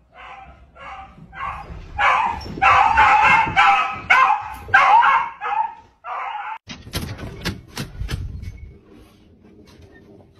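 Dog barking and yelping over and over in quick succession for about six seconds, then a few sharp knocks.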